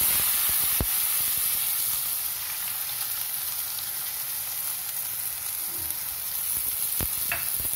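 Chopped onions, green chillies and curry leaves dropped into hot oil in a kadai, sizzling. The sizzle starts suddenly, loudest at first, then settles a little, with a few sharp clicks along the way.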